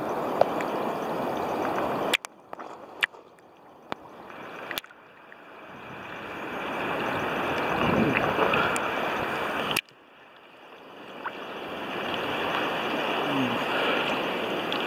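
Sea water splashing and sloshing right against a camera held at the surface among small waves. The sound cuts off suddenly twice, about two seconds in and near the ten-second mark, as the camera goes under the waves, and each time it swells back gradually.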